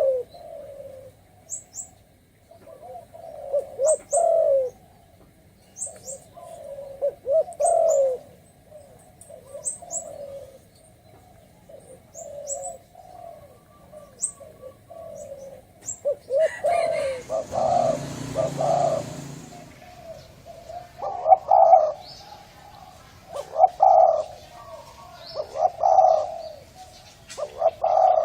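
Spotted dove cooing, a low rolling phrase repeated about every two seconds. Thin high chirps from a small bird come through in the first half, and a burst of rustling noise falls near the middle.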